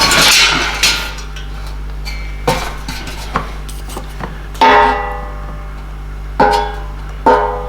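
Steel welding rods and metal pipe clinking together at irregular moments, the stronger strikes ringing on briefly with a metallic tone, over a steady low electrical hum.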